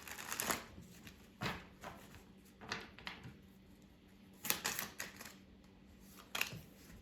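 A deck of tarot cards being shuffled by hand, in short crackling bursts every second or so, about five in all.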